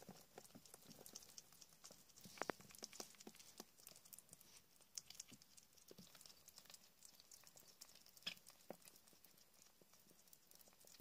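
Faint, scattered clicking and tapping of least weasel kits feeding on raw meat from a plate: small claws and teeth ticking on the plate and floor as they jostle, with a couple of sharper taps.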